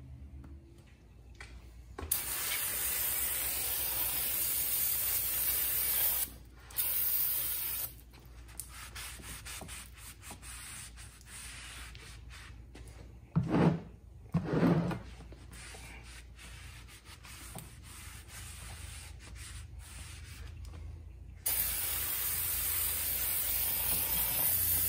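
An aerosol spray can hissing on a cross-drilled brake rotor to clean it. There is a burst of about four seconds, a short one after it, and another of about three seconds near the end. In between, a shop towel rubs and wipes the rotor face, with two short louder rubs near the middle.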